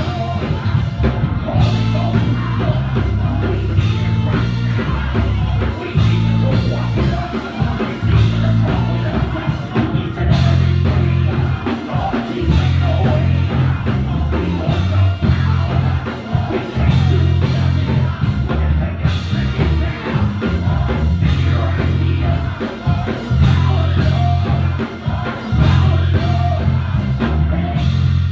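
Church worship music: singing over a band with drum kit and heavy bass, playing continuously at a loud level.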